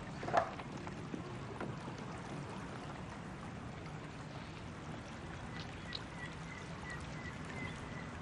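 Steady low rushing background of river water along a stone quay, with a brief sharp sound just after the start and a faint steady high tone through the second half.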